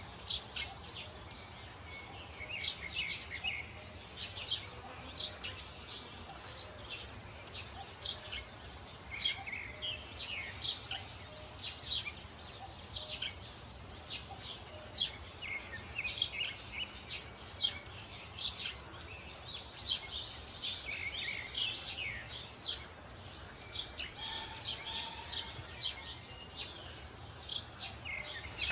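Birds chirping and singing, many short, quick calls and trills overlapping throughout, over a faint steady low background hum.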